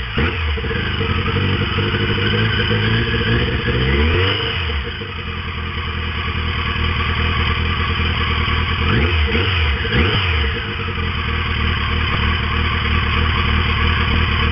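Yamaha XJ650 Turbo motorcycle's turbocharged inline-four engine idling just after starting. It is revved up and back down about four seconds in, then blipped twice in quick succession around the ten-second mark.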